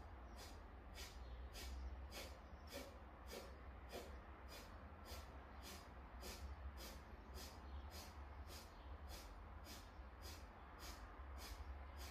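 A woman's forced nasal exhalations, each pushed out by a small pulse of the abdomen, a short sharp huff through the nose at a steady rate of about two a second. This is a kundalini yoga breathing exercise.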